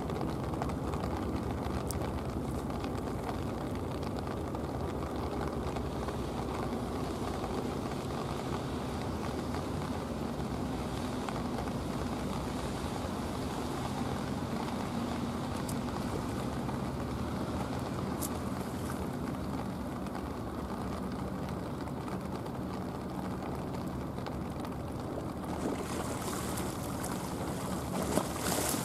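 Steady low drone of a boat's engine across the harbour water. Near the end, wake waves reach the quay steps and splash against them.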